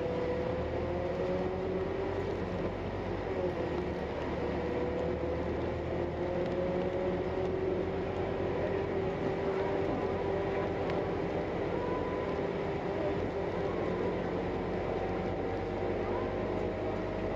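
Inside a moving bus: steady engine and road noise with a whine that drifts slowly up and down in pitch as the bus keeps speed.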